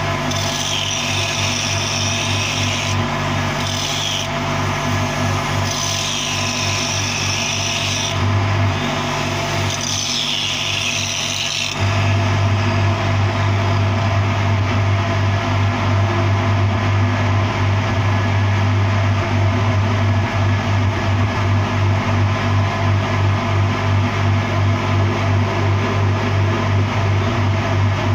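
Angle grinder working a steel pipe joint in short passes of a second or two, its pitch sagging as the disc bites, over a steady low hum. About twelve seconds in the grinding stops and the low hum grows louder, with a steady pulsing level.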